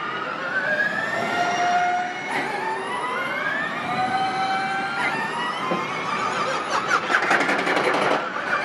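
Formula E electric racing cars pulling away one after another, each giving a high whine that rises in pitch as it speeds up. The loudest pass comes about seven seconds in, with a rapid buzzing flutter.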